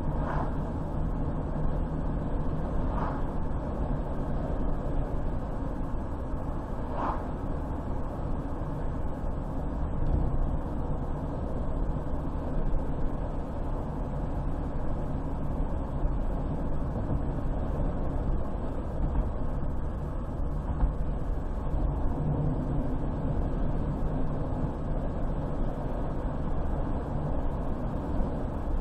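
Car driving along a highway: a steady low rumble of tyres and engine, with a few faint brief sounds in the first seven seconds.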